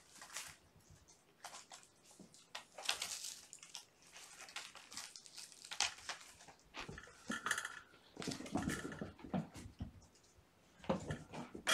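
Kittens playing: paws scrambling and scratching on a cardboard scratcher and carpet, with irregular rustles, scrapes and small knocks.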